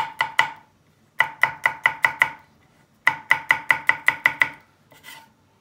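Chef's knife chopping garlic cloves on an end-grain wooden cutting board: quick runs of sharp knocks, about five a second, in three bursts with short pauses between.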